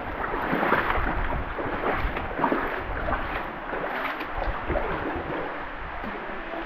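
Water splashing and sloshing close by as someone swims and wades through a shallow rock pool: many small splashes over a low rumble.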